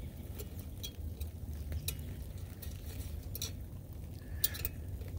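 A metal spoon scooping thick muffin batter from a cup into a foil loaf pan: soft wet squishes and scattered light clicks of the spoon against the cup and pan, over a low steady background rumble.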